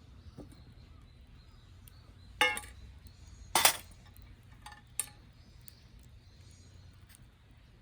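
Cooking gear clinking: three sharp knocks with brief ringing, the middle one loudest, about a second apart.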